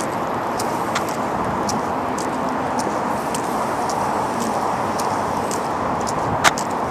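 Steady road-vehicle noise with light, irregular rattling clicks and one sharp knock near the end.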